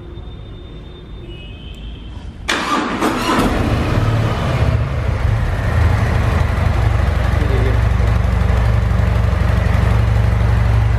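Harley-Davidson Heritage's V-twin engine cranked on the starter and catching about two and a half seconds in, then idling steadily.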